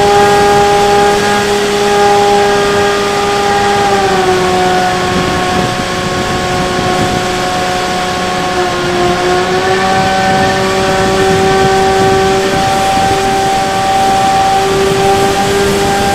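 Bixler 3 RC plane's electric motor and propeller whining in flight, heard close up from an onboard camera along with wind rush. The pitch falls about four seconds in, dips lower briefly around nine seconds, then rises back.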